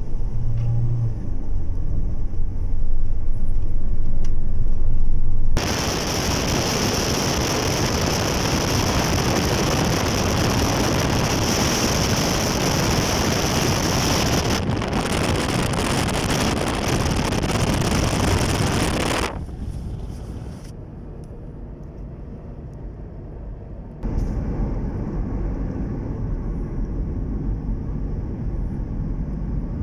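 Low road and engine rumble of a moving car. About five seconds in it gives way to a loud, steady hiss for roughly fourteen seconds, then after a quieter patch the low rumble returns.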